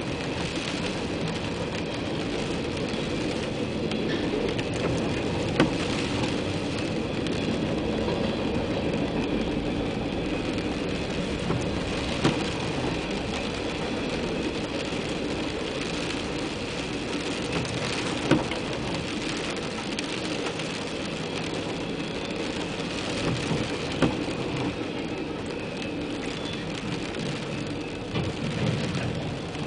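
Steady rumble of a passing freight train's cars mixed with rain falling on the car's roof and windshield. A windshield wiper sweeps across with a short knock about every six seconds.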